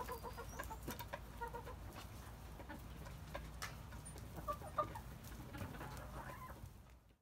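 Domestic chickens clucking in short, soft notes that come in little clusters, with a few light clicks between them; the sound fades out just before the end.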